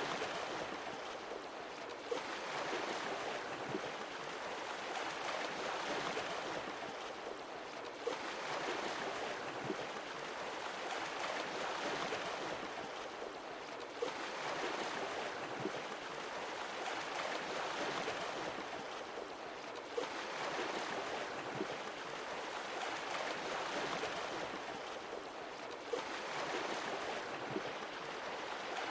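Sea waves washing ashore, swelling and easing in a steady cycle about every six seconds, with a small click at the start of each swell.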